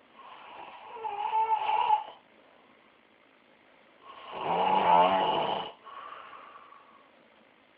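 Snoring: two loud snores about four seconds apart, the second followed by a softer breath out.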